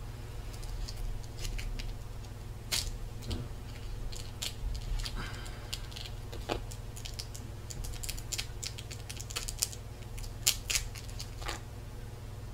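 Paper casing being peeled and torn off a small silicone rubber mould by hand: scattered crinkles, light tearing and small clicks, the sharpest near the end, over a steady low hum.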